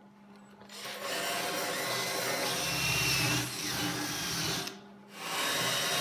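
Cordless drill spinning a wire wheel against the metal bow of a convertible top frame, scrubbing off old seal adhesive and paint. It starts about a second in, stops briefly near 5 s, then runs again.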